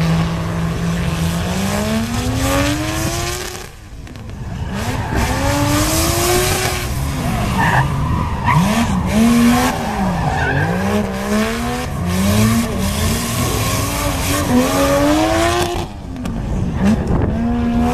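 Lexus IS drift car with a swapped Toyota 2JZ straight-six pulling away hard from a held rev, its pitch climbing steadily for about three and a half seconds before a brief dip. Then it revs up and down again and again while drifting, over tyre squeal.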